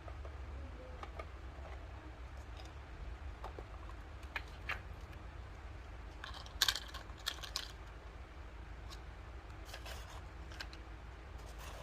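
Small plastic toy kitchen pieces being handled: scattered light clicks and taps, with the loudest few coming close together about two-thirds of the way through, over a steady low hum.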